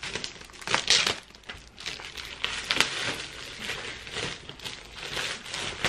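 Plastic shrink-wrap crinkling and a cardboard laptop box rustling as it is turned over and unwrapped by hand, with irregular rustles and small clicks, loudest about a second in.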